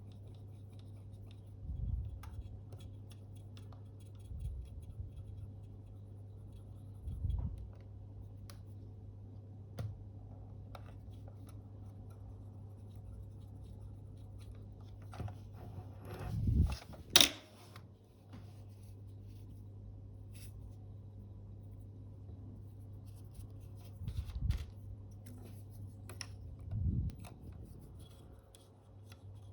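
Faint scratching and rubbing of a small tool scraping sticky glue off a camera's shutter flex cable, over a steady low hum, with a few dull bumps of handling and one sharp clack about seventeen seconds in.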